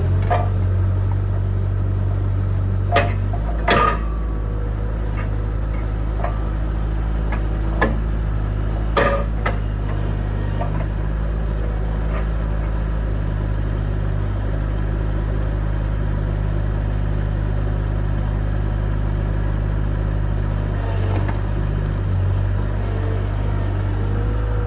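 Bobcat 753 skid steer's diesel engine running steadily while it works a hydraulic log splitter, its note dropping about three seconds in. A few sharp knocks or cracks stand out, the loudest in the first ten seconds.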